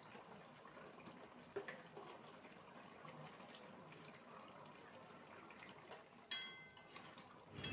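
Faint scraping and tapping of a metal spatula and spoon in a steel kadai of simmering curry, with one ringing metal clink about six seconds in.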